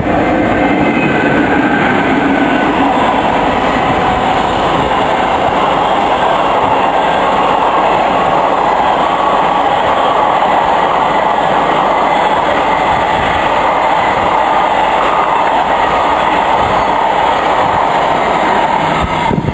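Freight train of empty steel wagons hauled by a Class 92 electric locomotive passing at speed: a loud, steady rush and rattle of wagon wheels on the rails.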